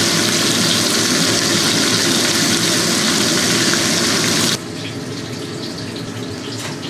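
Beef short ribs sizzling as they sear in a hot pan while being turned by hand. The sizzle cuts off abruptly about four and a half seconds in, leaving a quieter steady hiss.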